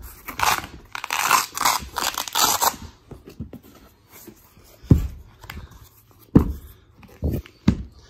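A 120-watt foldable fabric-backed solar panel being opened: a rasping, tearing sound for about two and a half seconds as its folded case is pulled apart, then several sudden knocks as the panel sections flop open onto the floor.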